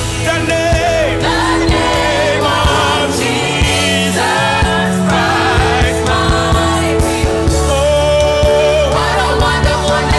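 Gospel worship music: several voices singing long, wavering lines over a band with bass and a steady drum beat.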